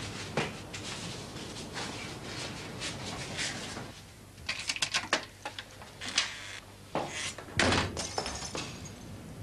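Scattered knocks and clatter, then a door closing with a heavy thud near the end.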